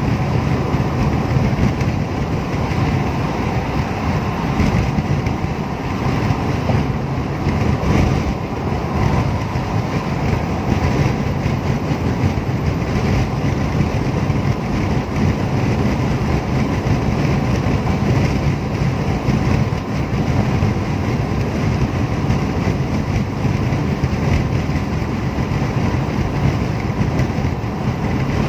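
Steady road noise inside a car cruising on an expressway, with tyre and engine noise running evenly throughout.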